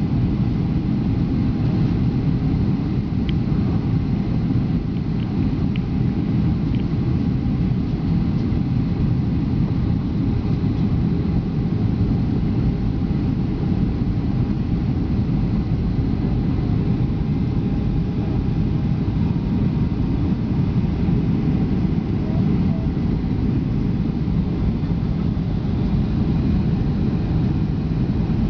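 Steady rumble of a passenger jet's engines and airflow heard inside the cabin during the approach, with a faint steady tone above it.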